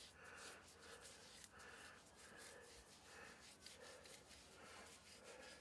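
Faint rhythmic rubbing of a hoof-conditioner dauber being brushed over a horse's hoof wall, about two strokes a second.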